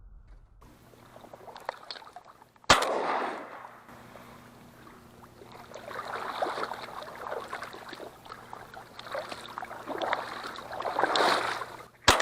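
A single shotgun shot about three seconds in, followed by irregular splashing and movement in water. Another sudden bang comes at the very end.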